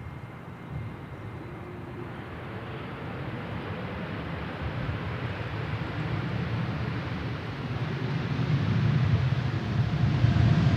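Airbus A320neo jet engines, a steady rushing noise that grows steadily louder as the airliner comes in to land.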